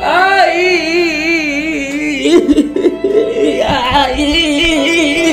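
Exaggerated comic wailing: a long, wavering cry that shoots up at the start, with another rising wail about four seconds in.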